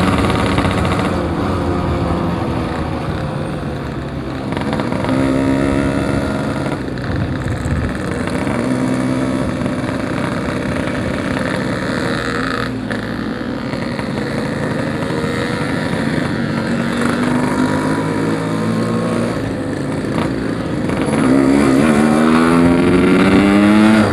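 Yamaha RX-King two-stroke single-cylinder motorcycle engine under way, its revs climbing and dropping several times as it accelerates and eases off. It makes a long, strong climb in revs near the end.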